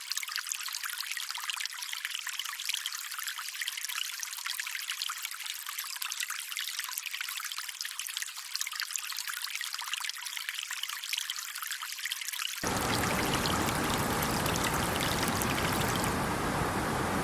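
Running water trickling and splashing, a thin, bright, crackly sound with no low end. About twelve seconds in it cuts abruptly to a louder, deeper, steady rushing noise.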